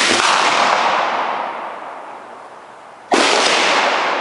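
Two loud gunshots about three seconds apart, each a sharp blast followed by a long echoing decay that fades over about two seconds.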